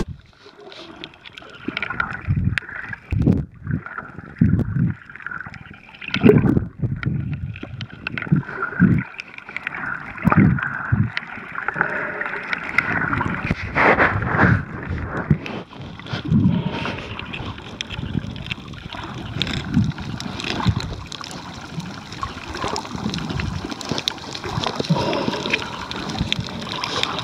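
Water sloshing and gurgling around an underwater camera held by a snorkeller, heard muffled, with irregular thumps and swells.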